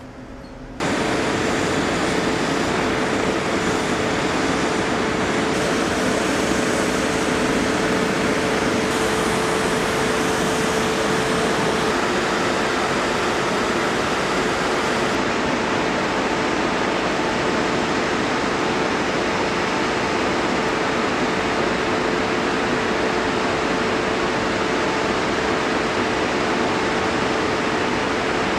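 Loud, steady jet turbine noise on the flight line: an even rushing hiss with a constant whine, starting abruptly about a second in.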